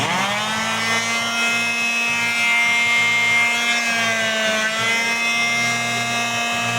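Electric sander switched on and running with a steady high motor whine, on a test run after its broken plastic pad columns were replaced. Its pitch dips briefly about four and a half seconds in.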